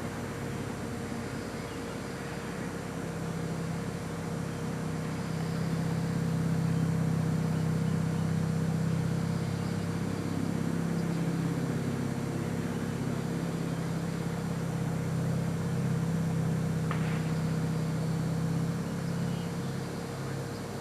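An engine running steadily, growing louder about six seconds in and easing off again near the end.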